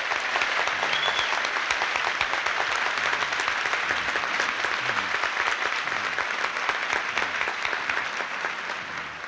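Audience applauding: many hands clapping in a dense, steady patter that eases off a little near the end.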